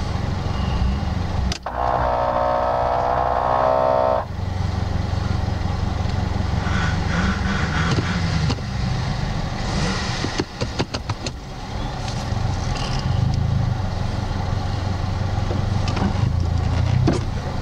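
Off-road 4x4 engine running with a steady low drone. About two seconds in, a held, level tone sounds for about two seconds. A few sharp knocks follow later.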